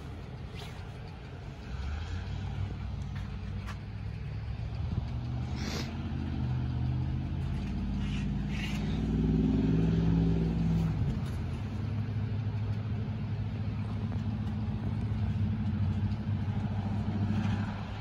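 A truck's engine driving past on a nearby street: a low engine hum that builds, is loudest with a rise and fall in pitch about ten seconds in, then carries on steadily and drops away near the end.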